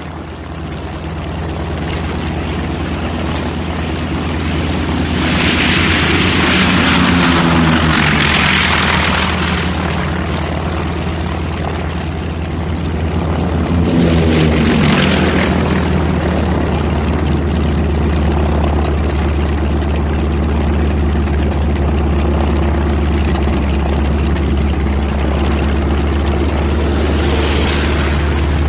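Propeller fighter planes taking off, their piston engines droning steadily. One plane passes close about five seconds in and another about fourteen seconds in, each swelling louder and dropping in pitch as it goes by. A smaller swell comes near the end.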